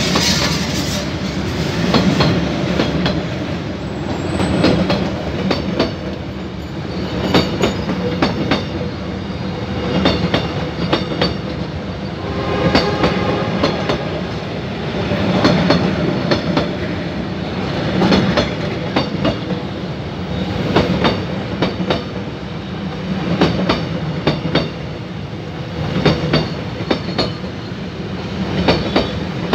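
Passenger coaches of a train rolling past at close range: a steady rumble with clickety-clack of the wheels over the rail joints and the crossing. It swells each time a coach's bogies go by, about every two and a half seconds, with a brief squeal about halfway through.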